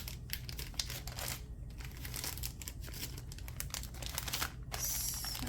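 Packaging from a craft-supply box being handled, crinkling in a dense run of quick rustles and clicks, with a louder rustle near the end. A low steady hum runs underneath.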